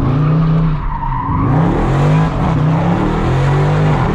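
A 2019 Dodge Charger Scat Pack's 6.4-litre Hemi V8 being driven hard. The engine note climbs in pitch and levels off again and again, about four times.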